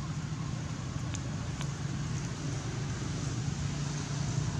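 Steady outdoor background rumble and hiss, with two faint clicks about a second and a second and a half in; no monkey calls are heard.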